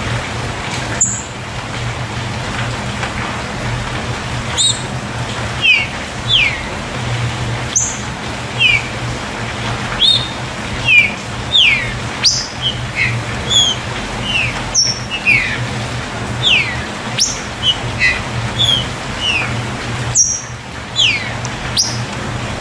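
Green-winged saltator (trinca-ferro) calling: short, sharp whistled notes that slide downward, in irregular groups of two to four, over a steady hiss and a low hum.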